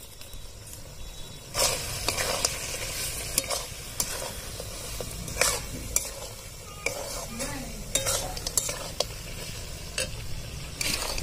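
Duck meat and spices frying and sizzling in oil in a large metal wok, stirred with a metal spatula that scrapes and clinks against the pan at irregular intervals, about a dozen strokes.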